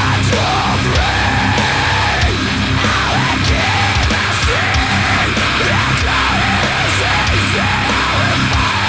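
Loud heavy rock music with shouted vocals over a steady dense backing.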